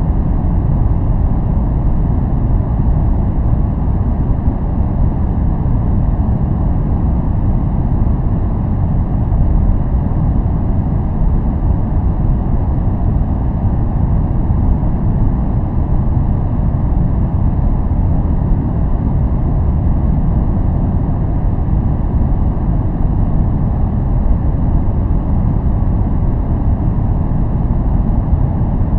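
Steady, unchanging noise track sold as white noise for focus, deep and rumbling, with most of its weight in the low end and only a faint hiss above it.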